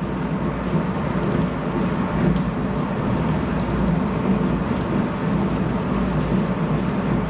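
Heavy rain falling in a steady downpour, a constant rushing noise.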